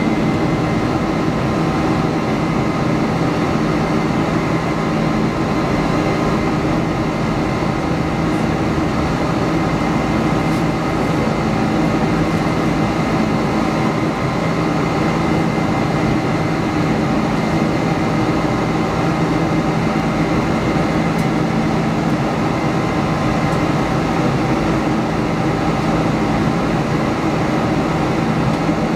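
Boeing 747-400 turbofan engines at climb power just after takeoff, heard inside the cabin over the wing: a steady, loud engine noise with several steady humming tones running through it.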